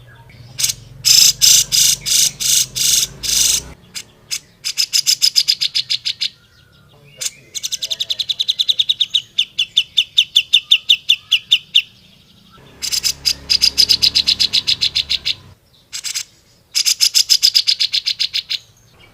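Cucak jenggot (grey-cheeked bulbul) singing loudly in fast trills of rapidly repeated high notes, each phrase lasting a few seconds with short pauses between.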